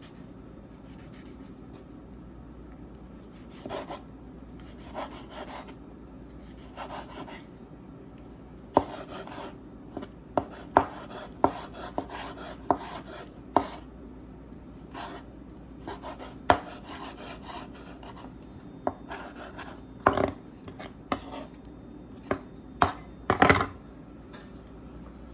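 Kitchen knife dicing a tomato on a cutting board: a few soft slicing strokes, then two runs of sharp knocks as the blade hits the board.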